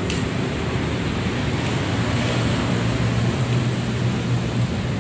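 Steady outdoor background noise, a low rumble with hiss, a little stronger in the middle; one short click right at the start.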